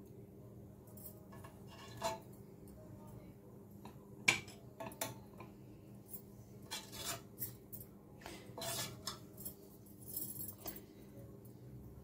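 A metal ladle clinks and knocks against a ceramic bowl as curry is served, giving a scattering of light, irregular clinks. The sharpest comes about four seconds in. A faint, steady low hum runs underneath.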